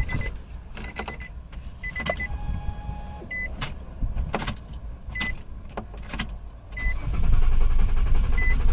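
2008 Nissan Quest's 3.5 L V6 being cranked by the starter motor from about seven seconds in, turning over without catching: a crank-no-start from lack of fuel. Before that, a high electronic chime beeps several times, with a few sharp clicks.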